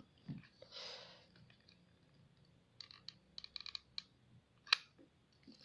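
Small clicks and crinkles from handling a thin clear plastic sheet on the foam wing, with a short rustle about a second in, a run of quick light clicks a little later, and one sharper click near the end.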